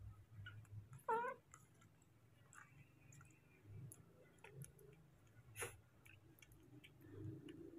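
A baby monkey gives one short squeaky call with a wavering pitch about a second in. Faint clicks of a metal spoon against a plastic feeding bowl follow, with one sharper tick about halfway through.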